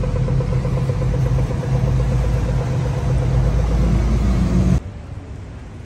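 A road vehicle's engine running close by with a steady low hum, its pitch rising slightly before it cuts off suddenly about five seconds in.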